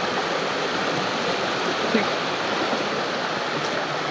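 Steady rushing of running water, like a stream, with a single short knock or twig crack about two seconds in.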